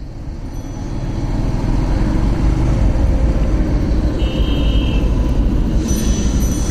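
Yamaha motorcycle riding slowly on a road: engine running under a low rumble of road and wind noise that grows over the first two seconds as it gathers speed, then stays steady.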